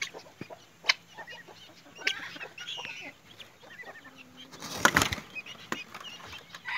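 Farmyard fowl in a pen: soft clucking and faint chick peeps, with scattered small clicks and a short, louder scuffle about five seconds in.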